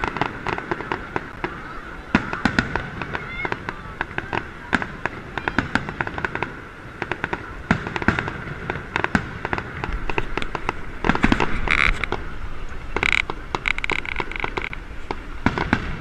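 Aerial fireworks shells bursting and crackling, a dense stream of sharp pops and cracks. A couple of short, loud, high-pitched honking tones sound about two-thirds of the way through.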